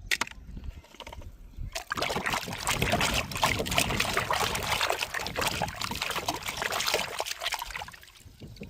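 Water splashing and trickling, with a dense crackly spatter that starts about two seconds in and fades near the end, typical of toy cars being rinsed or washed.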